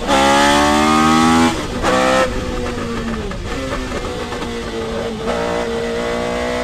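Tyrrell P34's Cosworth DFV V8 heard from the cockpit at speed. A gear change comes right at the start, then the revs climb steeply for about a second and a half. After another quick gear change, the engine settles into a lower, steadier note that is a little quieter.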